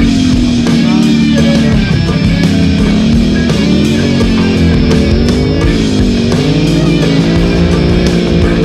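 Rock music with electric guitar and drums, playing steadily.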